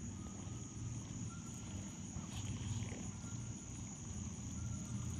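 Faint outdoor background of insects: a steady, high-pitched buzz that holds on one pitch throughout, over a low rumble.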